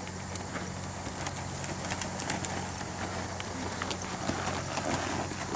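Quarter Horse's hoofbeats at a canter (lope) on arena dirt, heard as scattered soft thuds over a steady low hum.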